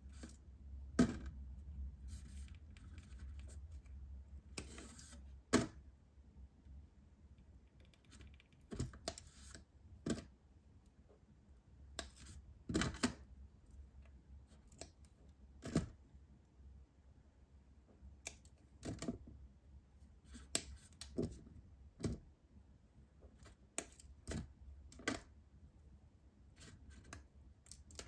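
Thin molded chocolate (a Kyarapaki character bar) snapping and cracking as small pieces are broken off by hand around the figure. The snaps are sharp and irregular, coming every second or few.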